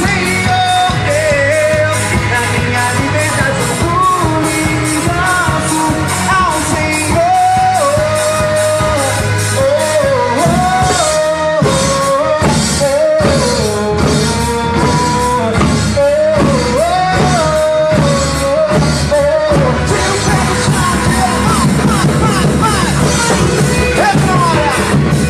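Church worship band rehearsing a song: a lead voice sings a melody over a steady drumbeat and bass. About twenty seconds in, the singing stops and the band plays on.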